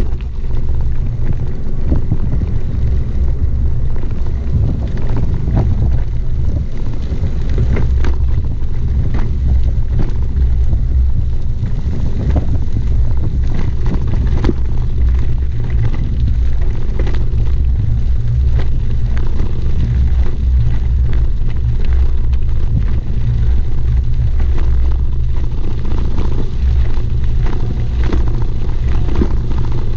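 Wind buffeting the microphone of a camera on a moving bicycle, a loud steady low rumble, with scattered clicks and crunches from the tyres and the bike rattling over a gravel road.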